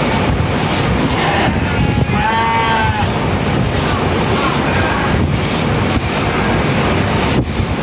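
A sheep bleats once, a little over two seconds in, over a steady, loud rushing noise.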